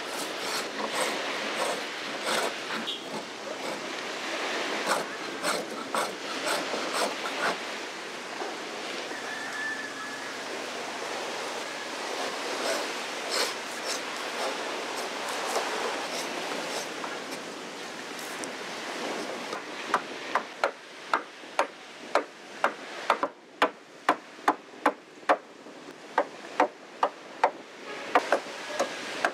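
Hand tools shaping timber: a long stretch of rasping and scraping on wood with scattered clicks, then, about two-thirds of the way through, a steady run of sharp strikes into the wood, about two a second.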